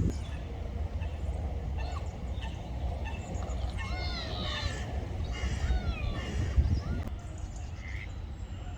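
Ducks calling: a cluster of short, bending calls, thickest around the middle, over a steady low rumble.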